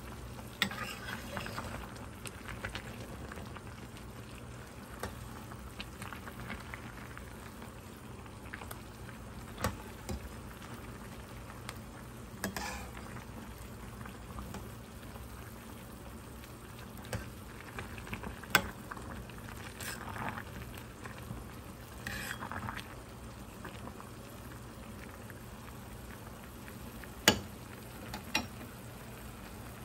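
Pot of Busan fish cake soup simmering, a steady bubbling, while a metal ladle stirs and scoops the broth. A handful of sharp clinks of metal on the pot stand out, the loudest near the end.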